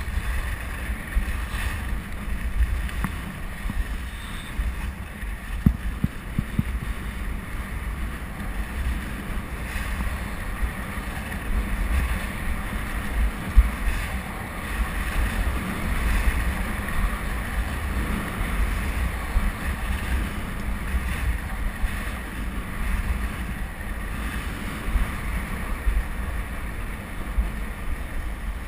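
Skis hissing and scraping steadily over packed snow during a downhill run, under a gusting rumble of wind on the microphone, with a few sharp knocks.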